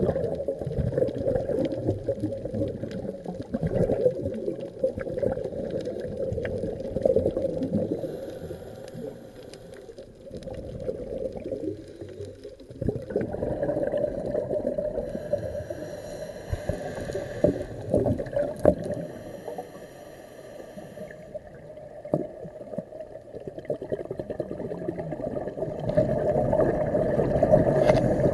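Underwater sound heard through a camera housing: scuba divers' exhaled regulator bubbles gurgling in swells every few seconds, with quieter stretches between breaths.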